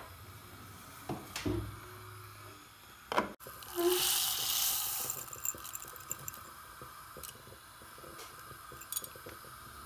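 A few light clinks of metal pots and lids in a kitchen drawer. A knock follows about three seconds in, then a short rushing hiss as dry buckwheat groats are poured into a stainless-steel pot of hot water.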